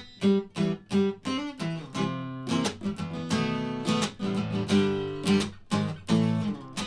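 Acoustic guitar strummed in a steady rhythm, about three strokes a second, each chord ringing on, with no voice over it.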